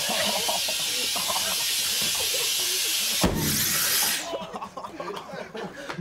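Steady hiss of air inflating a bicycle seat, then a sudden loud bang about three seconds in as the inflated seat bursts. A brief hiss follows and then dies away.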